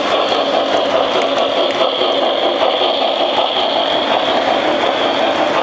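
Lionel Reading T1 O-gauge model steam locomotive and its freight cars rolling past on three-rail track: a steady mechanical running noise of wheels and motor with a faint whine on top.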